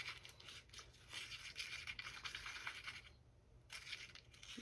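Stir stick scraping and swishing around a cup as resin is mixed to check its consistency, in quick uneven strokes with a short pause about three seconds in.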